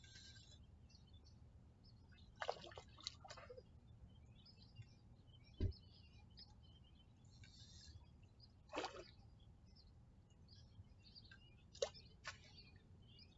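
Near silence: a faint, steady low wind rumble, with a few short, sharp chirps or clicks scattered through and one soft knock about halfway.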